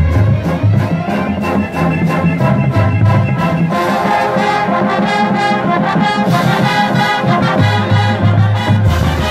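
A full marching band plays: brass section (trumpets, trombones, saxophones) with the drumline, drums keeping a steady beat under sustained brass chords. About four seconds in, the brass swells to a brighter, fuller chord.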